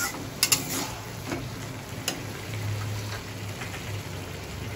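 A metal spatula knocking and scraping against an aluminium kadai a few times in the first two seconds, over a steady soft sizzle of diced bottle gourd cooking in its own released water.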